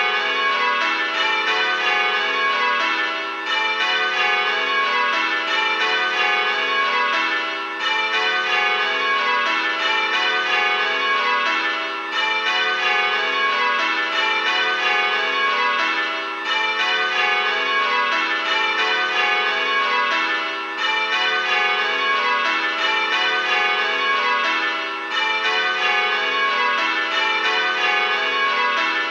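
Six tower bells from a bell-ringing simulator, ringing in steady change-ringing rhythm, one bell after another. A short gap comes about every four seconds: the handstroke gap, once per whole pull.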